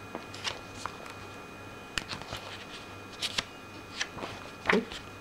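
Paper pages of a picture book being handled and turned, rustling and crinkling in a handful of short, sharp bursts.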